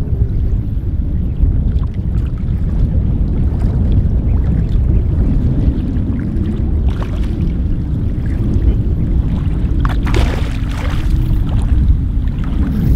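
Wind buffeting the microphone in a steady low rumble over shallow sea water, with a brief rush of splashing water about ten seconds in.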